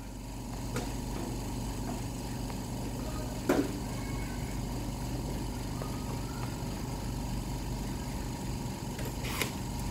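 Steady low electrical or mechanical hum, with a sharp click about three and a half seconds in and fainter knocks near the start and near the end.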